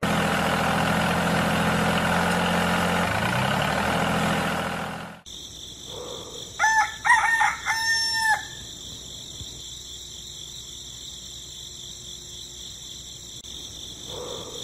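A DIY mini tractor's small motor and drive run loudly for about five seconds, then cut off suddenly. A rooster then crows over steady insect chirring.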